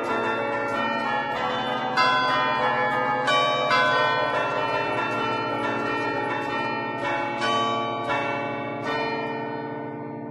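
Concerto of ten church bells in A2, cast by Barigozzi in 1950, played from a baton keyboard in a fast allegrezza melody of many overlapping strokes. The last strokes come about nine seconds in and the bells ring on and fade.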